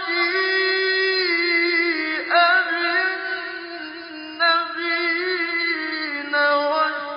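A male reciter chanting the Quran in Arabic, melodically. He draws out long held notes with wavering turns of pitch and starts a new phrase a little over four seconds in.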